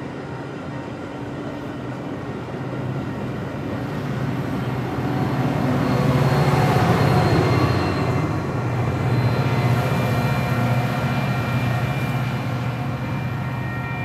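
Metra commuter train pulling into a station: a heavy rolling rumble that grows louder, peaks about halfway through, then eases a little as the train slows. Thin, steady high-pitched whining tones join from about the middle on.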